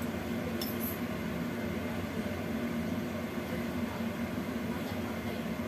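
Steady kitchen hum and hiss with no change: a lit gas stove burner running under a lidded wok, with a motor-like hum.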